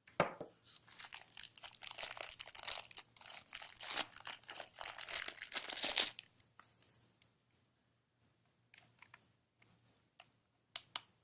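Plastic wrapping crinkling and rustling for about six seconds as a hair dryer is unwrapped, then a few light clicks and taps.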